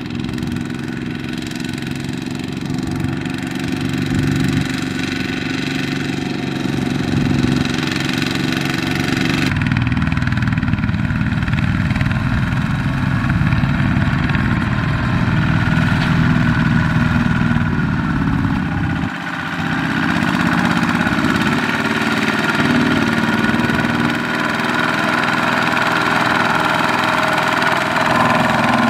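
Kubota walking tractors' single-cylinder diesel engines running steadily while pulling loaded rice-sack trailers through soft, muddy paddy. The engine note changes suddenly about a third of the way through and dips briefly past the middle.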